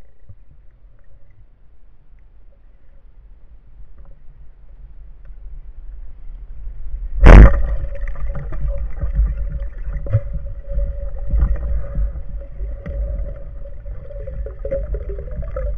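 Band-powered speargun fired underwater: one very loud, sharp crack about seven seconds in as the rubber bands release and the shaft shoots out. Low underwater rumble comes before the crack, and a louder, choppier rumble follows it.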